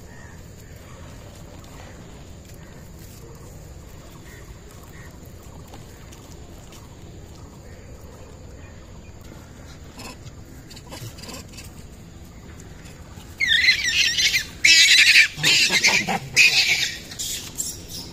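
A monkey shrieking: after a long quiet stretch, a run of loud, harsh screams comes in bursts over the last few seconds.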